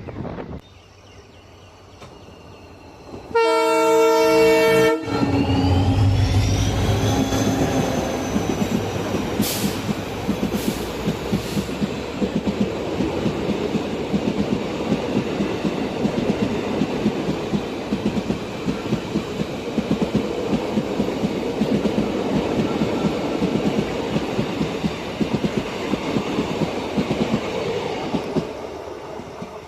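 A train horn sounds once, a loud chord lasting about a second and a half. Then a train's wheels clatter steadily over the rails for about twenty seconds, with a thin squeal rising and falling soon after the horn, before the clatter fades near the end.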